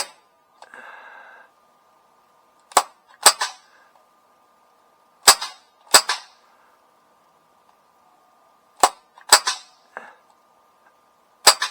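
Crosman C11 CO2 BB pistol firing repeatedly, about eight sharp pops, most of them in close pairs about half a second apart. The owner says the pistol is misfiring and hesitating.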